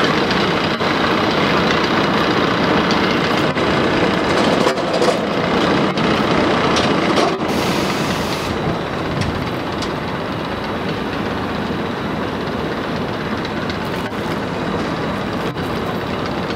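Gerstlauer Euro-Fighter roller coaster's train being hauled up its lift hill and running on the steel track: a steady mechanical clattering rumble that eases slightly about halfway through.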